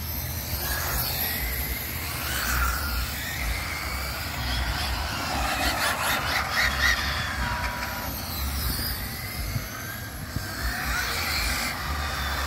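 Radio-controlled cars racing on asphalt, their motors whining and sliding up and down in pitch as they speed up and slow through the turns.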